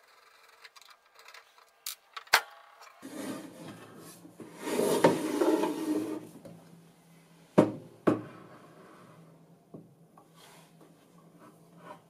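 An instrument chassis scraping as it slides out of its case, a rubbing noise lasting about three seconds. It is followed by two sharp knocks about half a second apart as the chassis bumps or is set down. There is a single sharp click about two seconds in.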